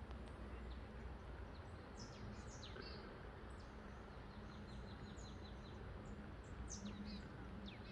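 Small birds chirping faintly, a scatter of short, quick, high chirps coming in little flurries, over a soft steady outdoor hiss.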